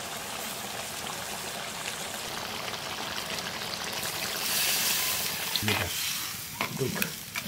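Chicken curry sizzling in a clay pot; a little past halfway, water is poured in and hisses loudly on the hot pot. Near the end, a metal spatula stirs and knocks against the clay pot.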